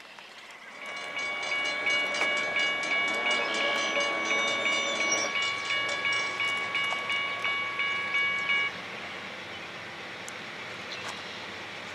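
Diesel locomotive air horn of an approaching CSX intermodal freight train sounding one long chord for about eight seconds, with an even pulse of about three beats a second. It cuts off sharply, and the train's steady rumble carries on.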